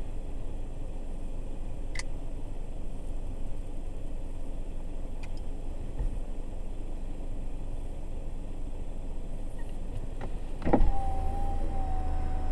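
Steady low rumble inside a stationary car, with a few faint clicks. Near the end a thump is followed by a car's electric power-window motor whining at a steady pitch, and the low rumble grows louder.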